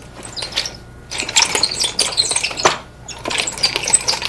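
Wooden nunchaku being twirled through figure-eight blocks, rattling and clicking in three quick runs with short pauses between them.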